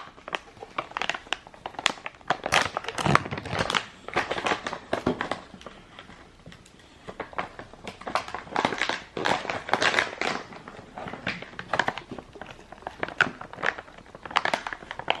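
Plastic packaging bag being crinkled and torn open by hand, with irregular rustling and crackling throughout.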